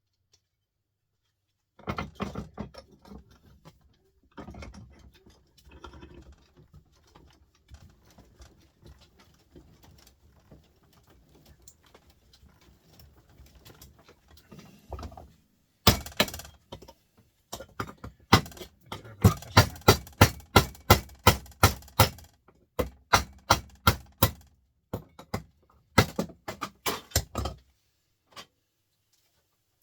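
Metal-on-metal work on a scrap electric motor: irregular clanking and scraping, then from about halfway a fast run of sharp hammer blows, about three or four a second with brief pauses, knocking the motor apart to get at its copper windings.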